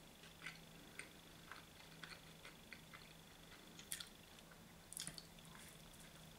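Faint, wet chewing and mouth smacks of a person eating a slice of mushroom and cheese pizza: soft irregular clicks, with a few louder smacks about four and five seconds in.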